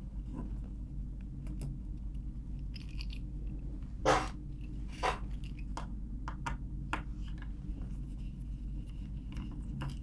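Light clicks and ticks of a precision screwdriver working T5 Torx screws out of a laptop's bottom panel, with two louder clacks about four and five seconds in, over a steady low hum.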